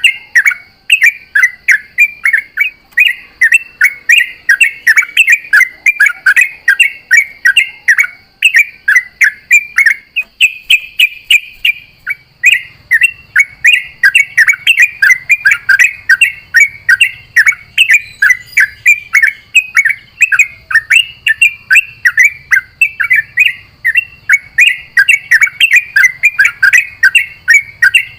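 Yellow-vented bulbul (trucukan) singing long, rapid runs of bubbly chattering notes almost without pause. There is a brief break about ten seconds in.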